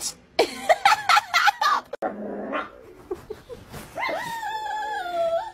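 Frightened dog whining: one long, high, drawn-out note that sags slightly in pitch, starting about four seconds in.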